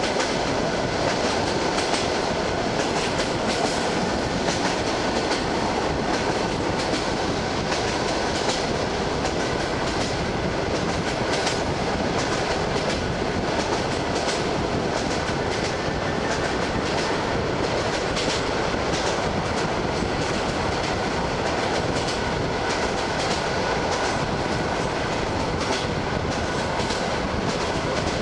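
ED9M electric multiple unit running at speed, its wheels clicking over the rail joints at irregular intervals above a steady rush of rolling noise, heard from a carriage window.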